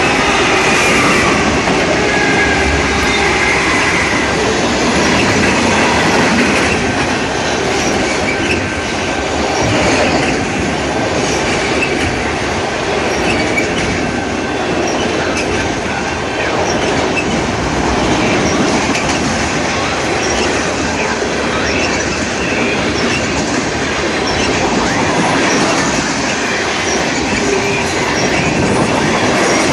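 Canadian National freight train rolling past at close range, with steel wheels clacking over rail joints and squealing on the rails.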